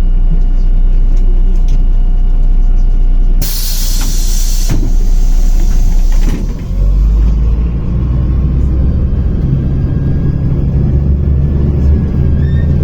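MAZ-105 articulated city bus's diesel engine rumbling, with a loud hiss of released compressed air about three and a half seconds in lasting over a second, then a weaker hiss. After that the engine's low rumble grows heavier.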